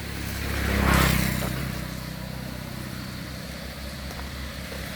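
A motor vehicle passing close by: engine and tyre noise swell to a peak about a second in, then fade, leaving a low engine hum.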